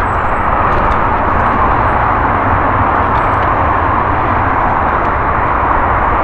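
Mountain bike riding along a leaf-covered dirt forest trail: a steady, loud rushing noise of tyres and air over the mic with a low rumble, and a few faint clicks.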